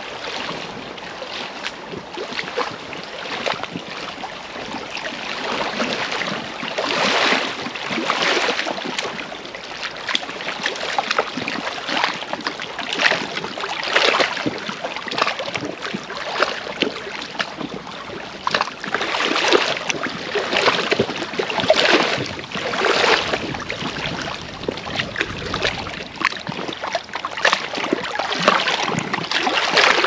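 Small lake waves lapping and splashing against the stones at the shoreline, coming in irregular surges every second or two.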